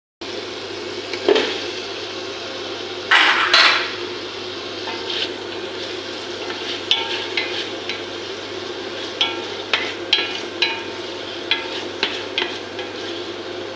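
A metal utensil clinking and scraping against a cooking pot while the food is stirred, over a steady hiss. There is a loud clatter about three seconds in, then a run of short, light taps.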